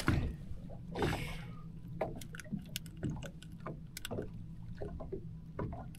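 Water lapping at a small boat's hull, with scattered light knocks and clicks from handling in the boat and a short splashy hiss about a second in. A low steady hum runs underneath.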